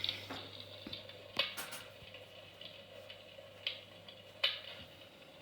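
Fireplace crackling: a faint hiss with a few sharp, separate pops.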